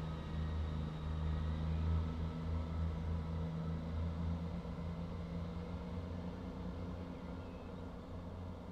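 Diesel multiple unit's engines droning steadily as the train draws away along the platform, the sound fading as it recedes.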